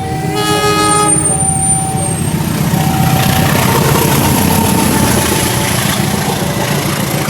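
A vehicle horn toots for about a second, then a heavy truck engine runs with a steady rumble.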